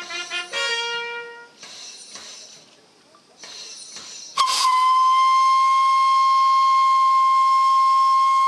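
A bugle call ends in its last held notes about a second and a half in. After a short lull, a steam locomotive's whistle is blown suddenly, about four seconds in, as one long, steady, high tone held for some four seconds.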